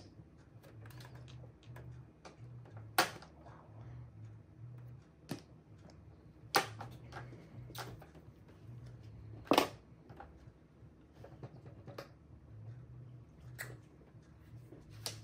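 Mahjong tiles clacking on the table as players draw and discard: single sharp clacks every one to three seconds, over a faint low hum.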